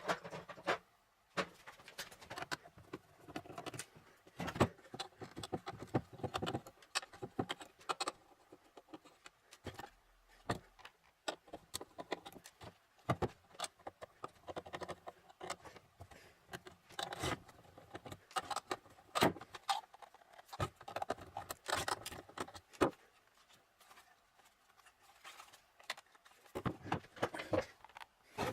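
Irregular small metal clicks, clinks and scrapes of a server power supply's metal housing and parts being handled and taken apart.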